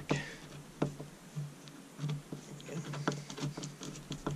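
Irregular small clicks and taps of a hand tool and the chain tensioner parts against a chainsaw's metal crankcase as the adjuster is worked down into place.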